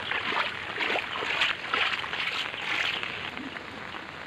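Water splashing in shallow floodwater on a road: a steady noisy wash with louder splashes about twice a second.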